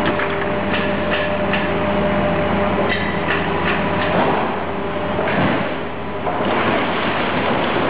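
Car-dismantling machinery running with a steady hum, with scattered metallic clicks and knocks through the first few seconds.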